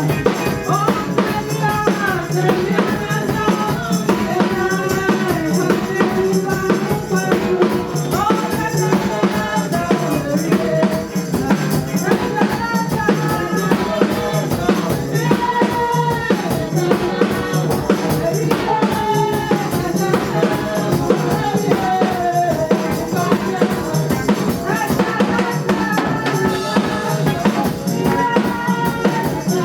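Church worship music: singing over a steady drum-kit beat with tambourine.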